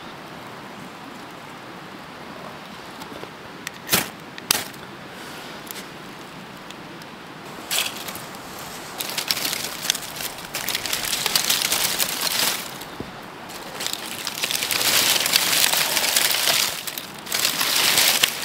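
Two sharp clicks about four seconds in, then dry twigs and leaves crackling, snapping and rustling in bursts as they are handled and piled over a lit fire-starter cube in a stone fire pit.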